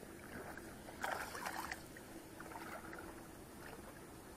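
Hooked mahseer splashing at the water's surface as it is brought in: a sharp burst of splashes about a second in, then a few smaller splashes.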